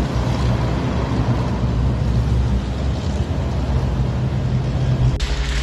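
Heavy military vehicle engines rumbling steadily as vehicles drive along a street. Shortly before the end the sound cuts to a different recording with a steadier low hum and hiss.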